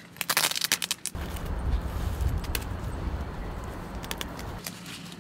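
Tent fabric being handled: a quick run of clicks and rustles, then a low rumble with scattered light ticks that eases off near the end.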